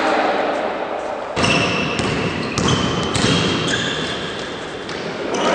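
Indoor basketball game: the ball bouncing on the court and several short high squeaks of sneakers on the hall floor, echoing in a large sports hall.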